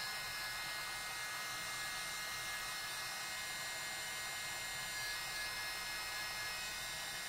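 Embossing heat gun running with a steady electric whir, melting embossing powder mixed with pigment.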